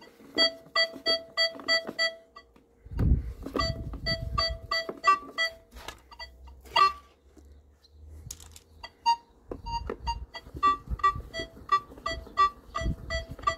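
Nokta Makro Legend multi-frequency metal detector giving runs of short electronic beeps, about four a second, at two pitches, as a kreuzer coin on a stick is moved in a test hole beneath its coil; the coin is still picked up at about 25 cm, but only as a borderline signal. Low knocks of the wooden stick in the hole come in between.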